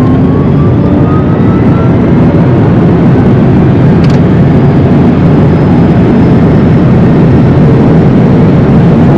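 Rimac Nevera's four electric motors under hard acceleration: a whine rising in pitch for the first couple of seconds, then giving way to loud, steady road and wind roar as speed builds.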